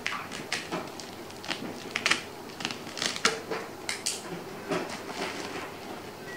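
Scissors cutting through a parcel's plastic wrapping and packing tape, then the plastic wrap crinkling and tearing as it is pulled off the box: a run of irregular sharp crackles.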